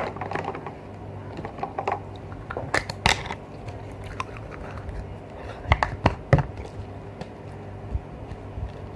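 Slime being squeezed and kneaded by hand: irregular wet squishes, clicks and crackles, strongest around three seconds in and again around six seconds in.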